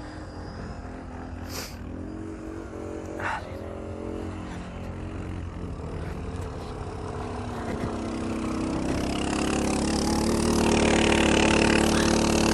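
ATV engine running at low revs, growing louder and working harder from about eight seconds in, with a couple of short knocks in the first few seconds.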